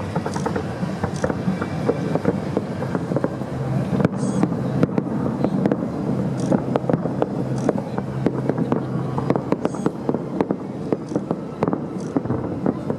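Fireworks going off in rapid succession, a dense run of sharp cracks and pops, over a steady low drone.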